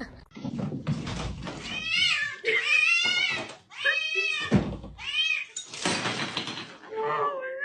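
A cat meowing repeatedly, five or six drawn-out calls whose pitch wavers up and down.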